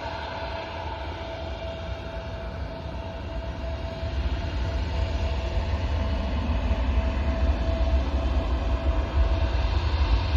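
Jet airliner engines at takeoff power as the plane climbs away: a deep, steady rumble that grows louder from about four seconds in, with a steady whine above it.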